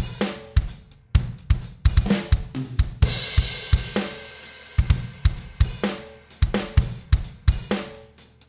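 Outro music with a driving drum-kit beat of kick, snare and hi-hat. About three seconds in a cymbal crash rings out while the bass drops away, and the beat comes back in near the five-second mark.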